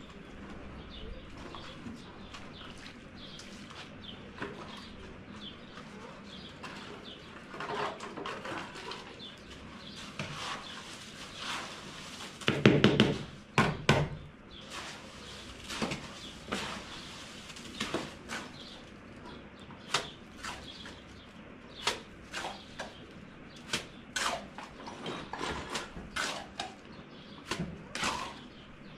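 A series of sharp knocks and taps, with a louder clatter about halfway through and knocks coming roughly every two seconds in the second half.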